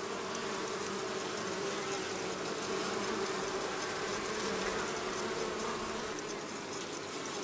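Honeybees buzzing in a steady hum around an open hive while a comb frame is held out of it.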